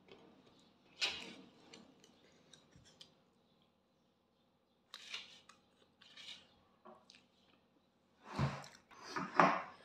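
Eating by hand from a stainless steel plate: a few short, scattered scrapes and clinks of fingers and food on the metal plate, with soft mouth sounds of eating between them. The loudest sounds come near the end.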